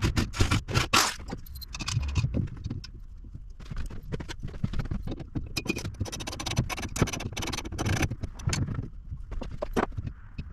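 Metal storage rack parts being handled and hung on wall brackets: an irregular run of clinks, rattles and scrapes.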